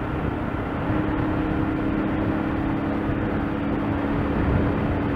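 Motorcycle engine running steadily while riding, a steady drone over a rushing noise, getting a little louder about a second in.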